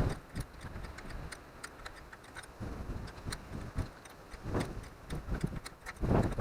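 Irregular clicks and metallic clinks of hand tools and small parts being handled while a minibike is taken apart, with a few duller knocks.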